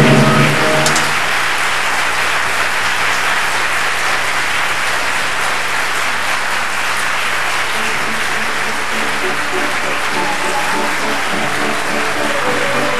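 Theatre audience applauding steadily. The music's held last chord dies away about half a second in, and from about eight seconds in music starts again under the applause.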